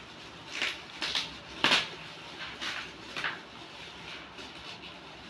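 Shiny red gift wrap crinkling by hand as a round present is unwrapped: several short crackles, the loudest about a third of the way in.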